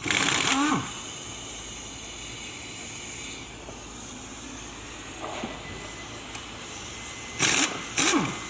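A handheld power tool run in three short bursts: one just under a second long at the start, then two brief ones close together near the end, each winding down in pitch as it stops.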